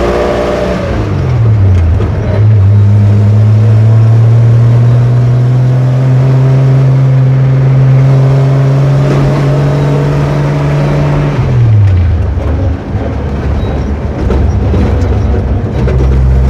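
Ford F-100 pickup's six-cylinder engine running loud. Its note falls in the first couple of seconds, holds and climbs slowly for about nine seconds, then drops sharply about twelve seconds in and settles at a lower, steady pitch.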